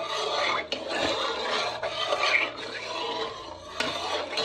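Metal spoon stirring and scraping around a nonstick pan of hot milk, a steady rasping with a couple of light knocks of the spoon against the pan.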